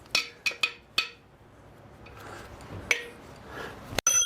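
Hammer blows ringing on metal: about four in the first second, one near three seconds, and one at the end. They are driving a seized piston down out of a cylinder of a small-block Chevy 350 engine block.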